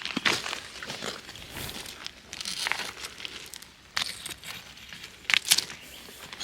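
Footsteps crunching irregularly over loose rocks and gravel, with two sharper clacks near the end.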